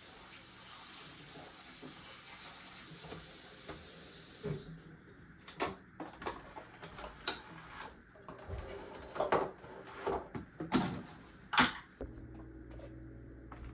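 A steady hiss of food frying in a pan stops abruptly. Then dishes and utensils clink and clatter in a run of sharp knocks over several seconds, the loudest near the end. A steady low hum follows.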